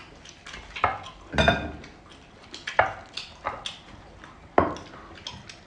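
Tableware knocking and clinking: about five separate sharp knocks of utensils against dishes, spaced a second or so apart, the loudest with a brief ring about a second and a half in.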